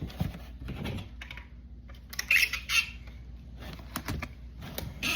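Light clicks, taps and rustling of hands handling packing materials, with a brighter scratchy rustle a little past two seconds in.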